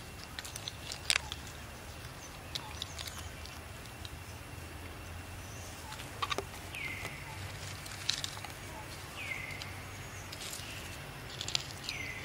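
Outdoor ambience with scattered light clicks and rustles, and three short high calls, each falling in pitch, spaced a couple of seconds apart in the second half.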